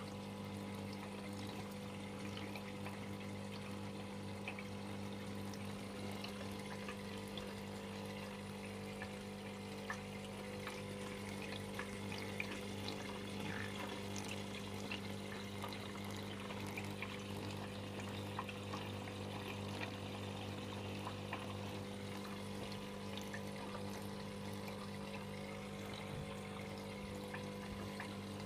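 Aquarium filter running: a steady trickle of water with many small ticks, over a constant low electric hum.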